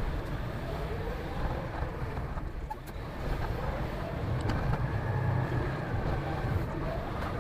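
Diesel engine of a concrete mixer truck running as the truck is driven, its pitch slowly rising and falling as it pulls away.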